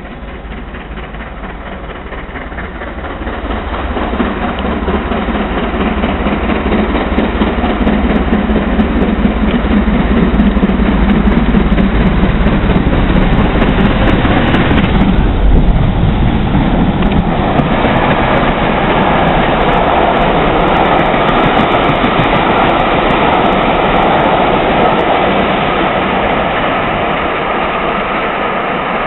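BR Standard Class 7 steam locomotive 70000 Britannia, a two-cylinder Pacific, passing with a train of coaches. A loud steady rush builds over the first few seconds as the engine approaches and is loudest about fifteen seconds in as it goes by. The coaches' wheels then keep rolling on the rails, with scattered clicks.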